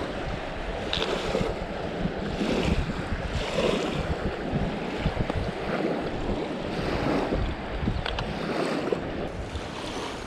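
Wind buffeting the microphone in uneven gusts, over river water washing against a sandy bank.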